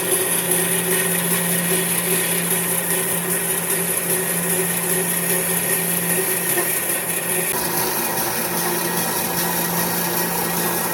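An electric power tool running steadily, with a slight change in its sound about two-thirds of the way through.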